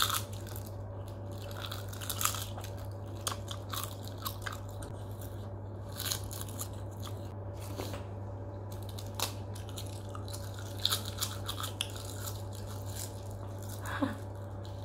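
Roasted seaweed snack sheets being bitten and chewed close to the microphone: irregular crisp crunches, one every second or so, over a steady low hum.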